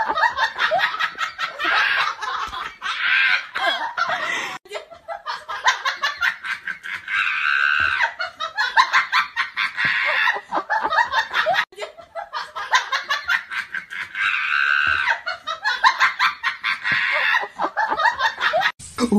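A recording of people laughing, fast and breathy, that repeats in a loop about every seven seconds: a laugh track laid over the clips rather than their own sound.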